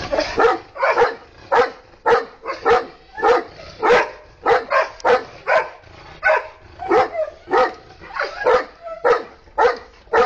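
A dog barking repeatedly, about two to three barks a second.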